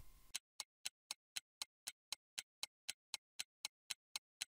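Steady clock-like ticking, about four ticks a second, used as a countdown sound effect while the viewer is left to work out an answer.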